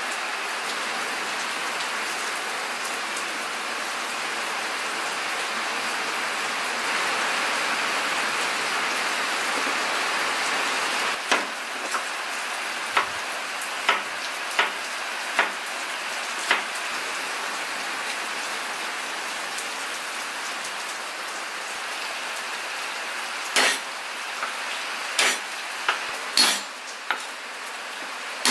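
Steady rain falling, with a cleaver knocking on a wooden cutting board as garlic cloves are cut: a string of light knocks about halfway through and a few louder strikes near the end.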